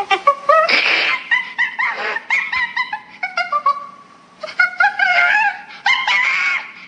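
Loud monkey sounds: a rapid run of short, high chattering calls broken by a few longer held calls.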